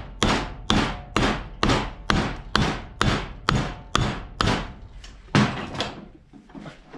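Ball-peen hammer driving a wooden wedge into the top of a hatchet handle to spread it tight in the head: regular sharp blows, about two a second. One blow near the end is the loudest, and then the hammering stops.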